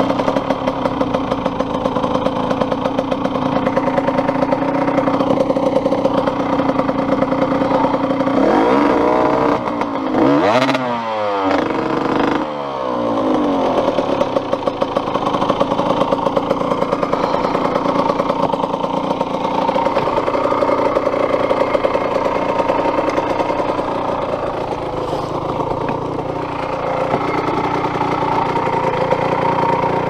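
Enduro motorcycle engine running at steady revs, with the revs swept up and down sharply several times about nine to thirteen seconds in.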